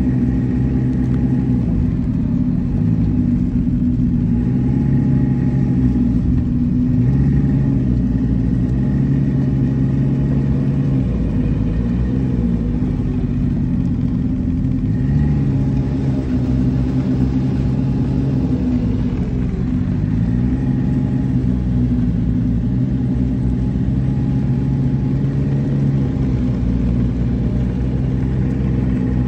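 Snowmobile engine running at low speed, its pitch rising and falling several times as the throttle is eased on and off.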